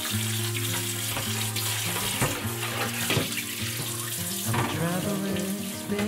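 Kitchen faucet running, the water splashing into a stainless steel sink and over a clear plastic refrigerator bin as it is rinsed.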